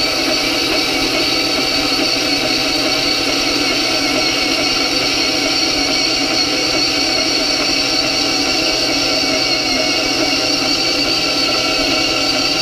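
10-inch benchtop bandsaw, slowed with a speed-reduction pulley kit, sawing through a 3/16-inch metal bar: a steady, unbroken whine of motor and blade cutting metal, holding several pitches.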